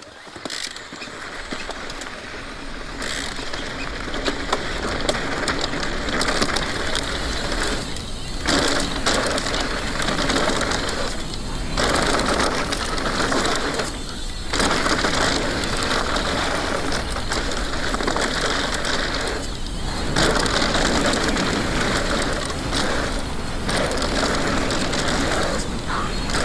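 Mountain bike riding down a dirt jump line: a steady rush of tyre noise on dirt and wind. It builds over the first few seconds and dips briefly four times.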